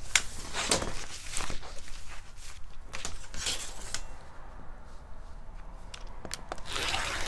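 Rotary cutter rolling through burlap along a steel straightedge: a run of short, irregular rasping strokes as the blade cuts and the coarse fabric shifts on the table.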